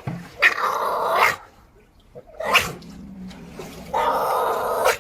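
A seal calling three times: a call of about a second, a short one, then another call of about a second.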